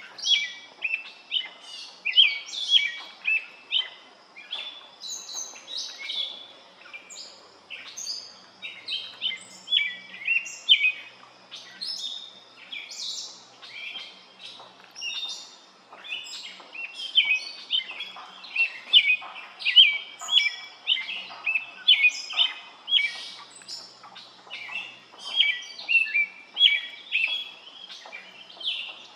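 Birds chirping busily: many short, overlapping high chirps in quick succession, as from several small birds calling at once.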